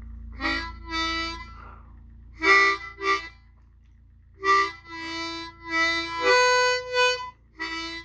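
Harmonica played with tongue blocking, tongue switching between holes 4 and 6. It comes in short phrases of a few notes, with brief breaks between them.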